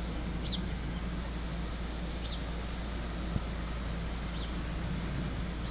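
Steady low rumble of outdoor background noise, with short, slightly falling high chirps every second or two, like a small bird calling.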